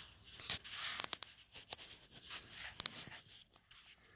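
Close handling noise: rustling and scraping with a few sharp clicks, busiest in the first second and a half and again near the three-second mark, then thinning out.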